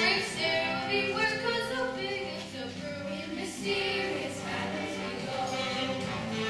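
A young stage cast singing a musical number together in chorus, over musical accompaniment.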